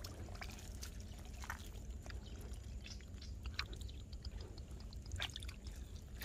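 Faint wet clicks and drips of hands working in mud and water at a field-crab burrow, a few small ticks standing out.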